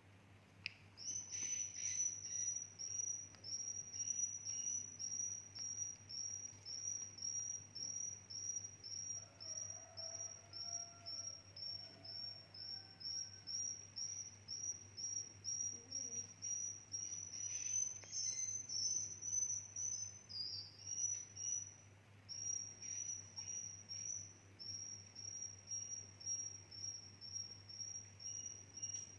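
Swiftlets giving their roosting calls: a steady, rapid run of short, high chirps, about two a second, which starts about a second in.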